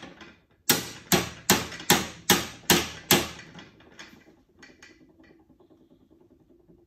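Hammer tapping roll pins into a Hurst shifter's selector pin: seven sharp strikes, about two and a half a second, starting just under a second in, followed by a few lighter taps.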